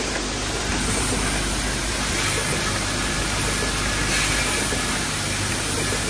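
Automatic hinge-part assembly machine running: a steady mechanical hum and hiss from its pneumatic cylinders and vibratory parts feeders, with soft recurring puffs about every two seconds.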